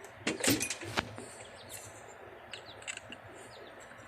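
Small birds chirping faintly in the background, with a few sharp clicks and a short rattle in the first second.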